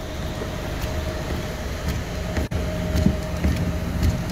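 Chevrolet car standing with its wipers on, a steady hum with a few light clicks scattered through it. The owner's complaint is that the door locks cycle every time the wipers swipe.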